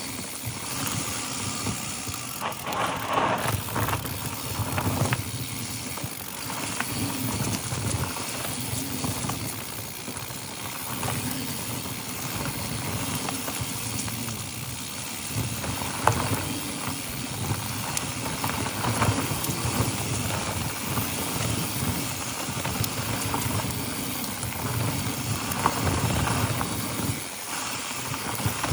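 Mountain bike riding fast down a dry dirt singletrack: knobby tyres rolling over loose dirt and dry leaves, with uneven rattles and knocks from the bike over bumps and one sharper knock about halfway through.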